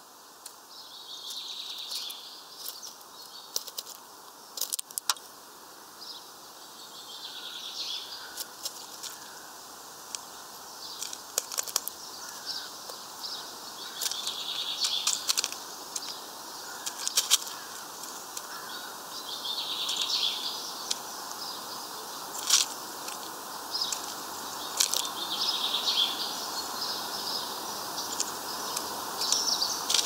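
Irregular sharp clicks and taps of a white wagtail pecking among sunflower seeds and husks on a wooden feeder tray, with birds chirping in the background.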